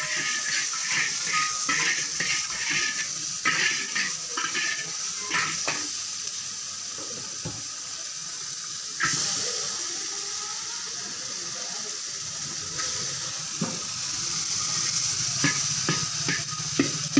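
Food sizzling in hot oil in a large iron wok, with a metal spatula scraping and clinking against the pan in quick strokes near the start and again near the end. The sizzle swells suddenly about nine seconds in.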